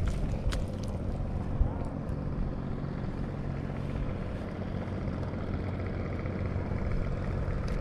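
A boat motor running steadily with a low drone, with two sharp clicks in the first second.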